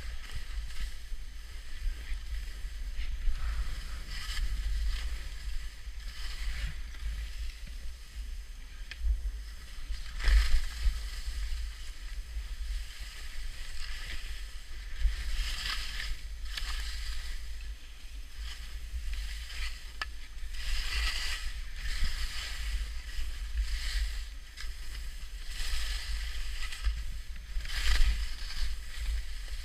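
Skis hissing and scraping over packed, bumpy snow, swelling at each turn, with wind rumbling on the microphone throughout.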